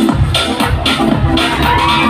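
Loud dance music with a steady beat and a bass line, about two beats a second.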